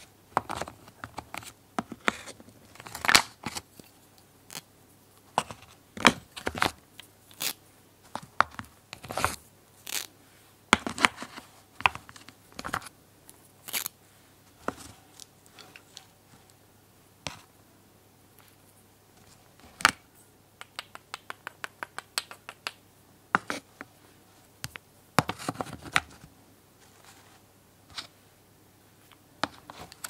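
Painted wooden toy puzzle pieces knocking and scraping as they are lifted out of a wooden board and set down, a string of irregular clacks and clicks. About twenty seconds in comes a quick run of light ticks, several a second.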